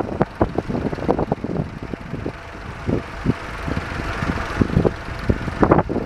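Vintage tractor engine running as it pulls a mounted plough, fading slightly as the tractor moves off. Irregular gusts of wind buffet the microphone on top of the engine and are the loudest part.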